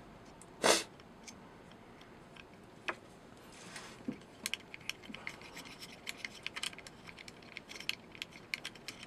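Fingers handling the metal magazine cover and lever knob of a Kalibrgun Cricket air rifle: one sharp click less than a second in, then a run of light, irregular clicks and scraping from about halfway on.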